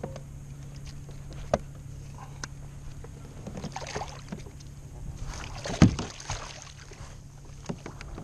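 Water splashing beside a kayak as a hand releases a channel catfish over the side, with a few sharp clicks and knocks of handling; the loudest knock comes near six seconds in.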